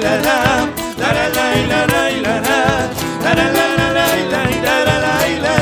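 Live Argentine folk song: acoustic guitars strummed in a steady rhythm, with voices holding long notes with vibrato between sung lines.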